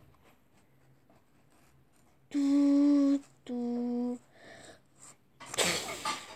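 A voice humming two long, steady notes, the second a little lower than the first, followed near the end by a short breathy, hissing burst.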